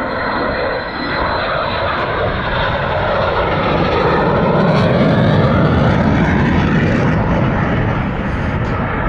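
Display aircraft flying past with its engine noise steady throughout, building to its loudest about five to six seconds in and easing a little after.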